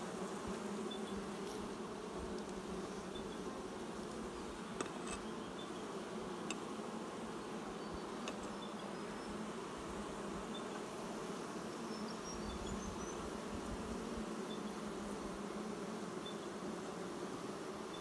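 Honeybees buzzing around an open hive, a steady hum of many bees at once. Two faint clicks near the middle.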